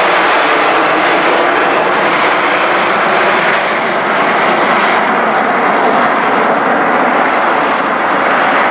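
Boeing 727 jet airliner flying past with gear down, its three rear-mounted Pratt & Whitney JT8D turbofans making a loud, steady rushing jet noise that eases slightly as it moves away.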